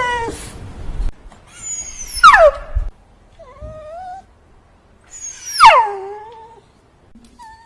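A cat meowing repeatedly: about five meows, the two loudest long and falling steeply in pitch, with shorter, quieter ones between them and near the end.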